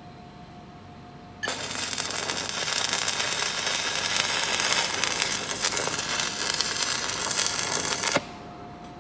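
Stick (manual arc) welding on steel: the arc strikes about a second and a half in, crackles and sputters steadily for about seven seconds, then cuts off abruptly as the arc is broken.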